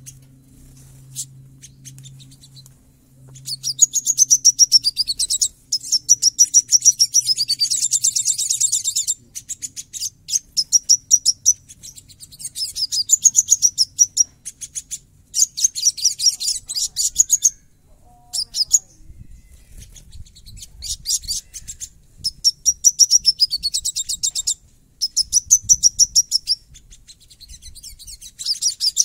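A caged sogon (sogok ontong) sunbird singing a harsh, rapid-fire song: dense runs of sharp, fast chattering notes with sweeping high trills, delivered in phrases of a second or two with short pauses between them.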